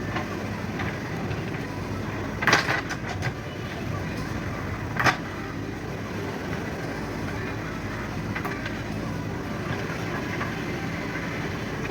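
JCB excavating machine's diesel engine running steadily under work, with a short run of loud clanks about two and a half seconds in and a single loud clank about five seconds in.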